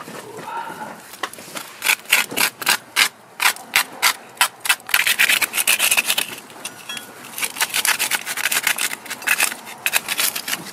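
Gloved fingers scraping and rubbing caked dirt and rust scale off an old rusty knife blade, in quick repeated rasping strokes that start about two seconds in.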